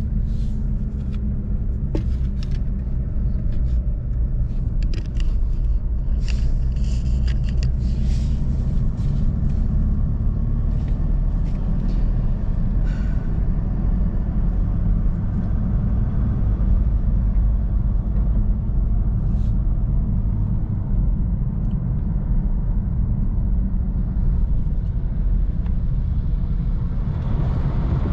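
Motor vehicle engine running steadily with a low drone, with a few light knocks and rattles in the first ten seconds or so.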